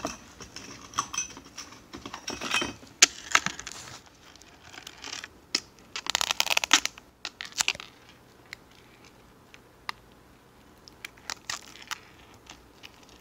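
Plastic shrink-wrap on a box being picked at and torn by hand, crinkling and crackling in irregular bursts with sharp clicks. A dense run of crackling comes about six seconds in, then a quieter stretch before a few more clicks near the end.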